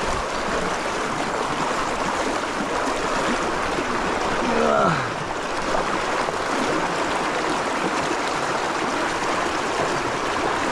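Creek water rushing steadily, with a hooked brown trout thrashing and splashing at the surface by the bank. A little before halfway comes a short vocal sound that falls in pitch.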